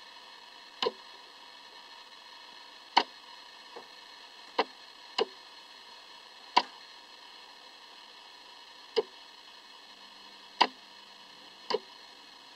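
A steady hiss with about nine sharp clicks at uneven intervals, the one near the end doubled.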